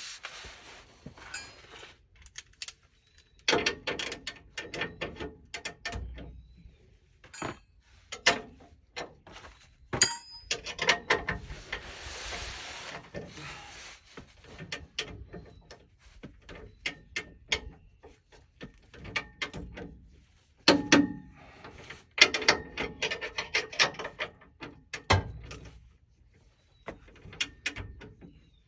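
Hand ratchet clicking in irregular runs, with clinks and knocks of metal tools, as bolts on a driveshaft safety loop bracket are tightened toward 80 ft-lb.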